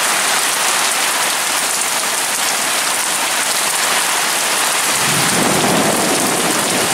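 Heavy rain pouring down steadily, with a low rumble of thunder coming in about five seconds in.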